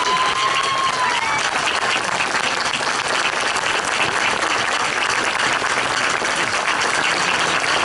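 Large audience applauding: many people clapping steadily together.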